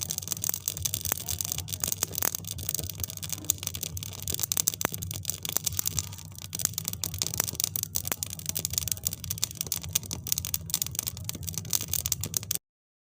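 Fireplace fire crackling: many irregular sharp snaps and pops over a steady hiss and a low hum, cutting off suddenly near the end.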